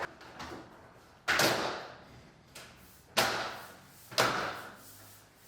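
Dishwasher side panel being fitted and knocked into place: three sharp thuds, each dying away over about half a second, with a few lighter knocks between.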